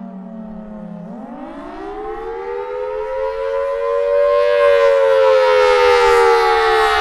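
Federal Signal Thunderbolt 1003 outdoor warning siren sounding for a test. Its wail sits low for about a second, then glides up over the next three seconds and begins to slowly fall, growing much louder as it rises.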